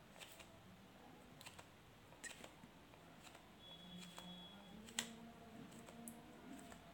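Near silence with a few faint clicks and taps of a pen and plastic ruler on a notebook page, the sharpest about five seconds in.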